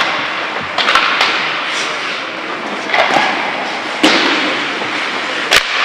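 Ice hockey play: skate blades scraping the ice, with sharp clacks of sticks and puck about five times, the sharpest near the end.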